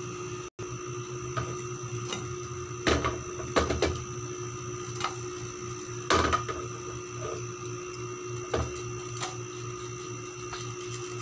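A slice of French toast frying in a nonstick pan on a gas burner: a steady hum with a faint sizzle, broken by a few sharp knocks, one about three seconds in and another about six seconds in.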